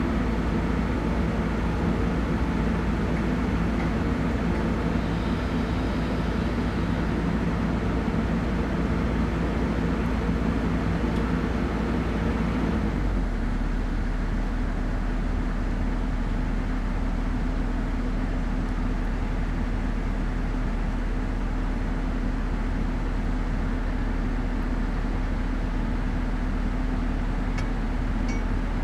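Heavy diesel engine running steadily, its note changing about halfway through.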